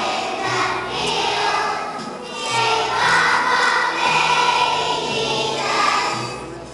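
A choir of young children singing together, with musical accompaniment holding low notes beneath the voices.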